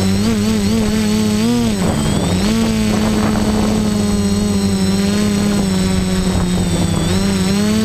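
Quadcopter's electric motors and propellers whining in flight, recorded by the onboard camera. The pitch wavers and dips about two seconds in, then climbs back and holds steady, with a short dip near the end, as the throttle changes.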